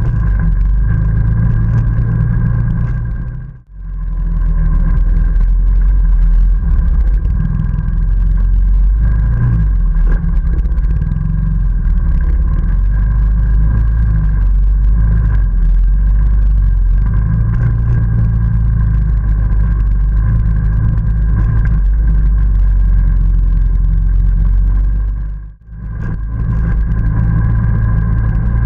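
ATV engine running steadily under way, a low drone with a steady whine above it. The sound drops out briefly twice, about four seconds in and near the end.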